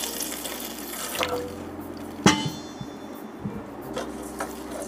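Water pouring into a metal cooking pot trails off, then a wooden spoon stirs the thin curry with a few light knocks against the pot and one sharp, ringing clang about two seconds in.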